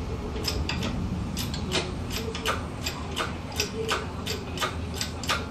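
Chain hoist lifting an engine out of a pickup, its ratchet giving an irregular run of sharp clicks, about three to four a second, starting about half a second in, over a steady low hum.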